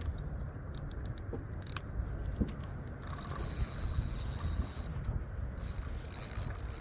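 Fishing reel's drag buzzing as a big channel catfish pulls line: one run starting about three seconds in, and a second near the end, over a low rumble.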